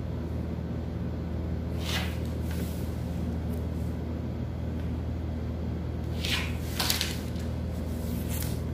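Short scrapes and rustles of a wooden pattern ruler and pencil moving over pattern paper: one about two seconds in, two close together a little before the seven-second mark (the second the loudest), and one near the end. A steady low hum runs underneath.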